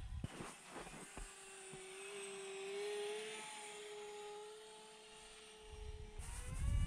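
Electric motors and propellers of a twin-motor RC plane flying overhead: a faint, steady hum that rises in pitch about six seconds in. A low rumble joins near the end.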